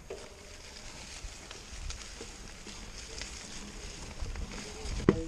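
Mountain bike tyres rolling over dry fallen leaves and dirt, a steady crackling with scattered small clicks and rattles, and one sharp knock about five seconds in.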